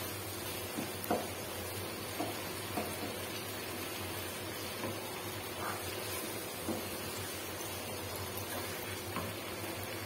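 Chopped vegetables sizzling in a nonstick wok while a wooden spoon stirs them, with a few light knocks and scrapes of the spoon against the pan.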